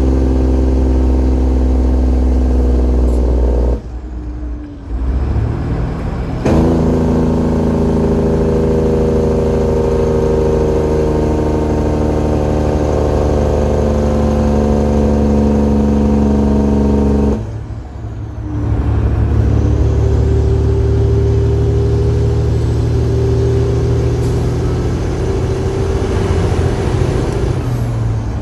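Detroit Diesel Series 60 12.7-litre truck engine running hard under a heavy load of about 135,000 lbs. Twice the engine sound drops away for a second or two as the driver shifts gears, about four seconds in and again about eighteen seconds in, then comes back up.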